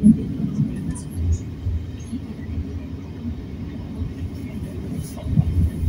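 Passenger train running, heard from inside the carriage: a steady low rumble from the wheels and running gear on the track, with a few faint clicks.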